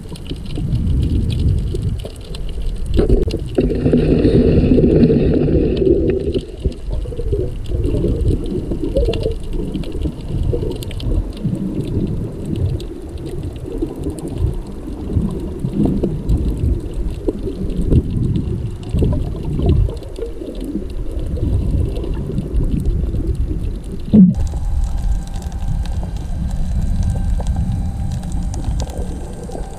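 Muffled underwater noise picked up through a camera's waterproof housing: an uneven low rumble and swish of moving water. There is a louder humming stretch a few seconds in and one sharp knock about three-quarters of the way through.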